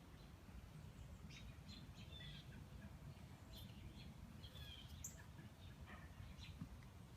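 Faint outdoor background: scattered short bird chirps over a low, steady rumble of ambient noise.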